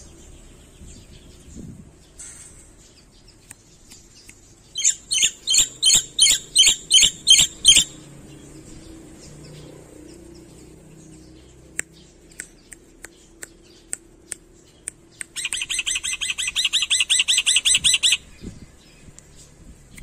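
Black-winged myna calling: a run of about ten loud, repeated notes at roughly three to four a second, then a few sharp clicks, then a fast chattering run of rapid notes near the end.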